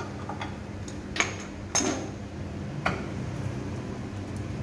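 Metal tools knocking against the steel motor pulley and frame: three sharp clinks, the loudest in the middle with a short metallic ring, over a steady low hum.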